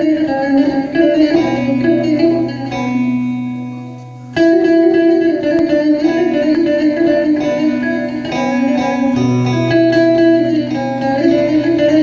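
Solo plucked string instrument playing a Turkish folk tune (türkü) with rapid picked notes over a low sustained note. About three seconds in a held note dies away, then playing resumes with a sharp stroke.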